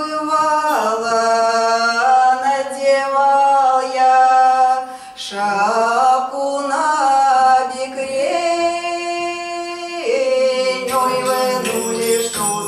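Two women singing unaccompanied in two-part harmony, drawing out long held notes. In the last second or so, a jingling hand percussion starts to shake under the voices.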